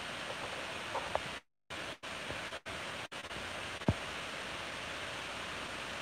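Steady hiss of background noise, cut by a few brief dropouts where the sound goes dead, with faint clicks about a second in and one sharp knock nearly four seconds in.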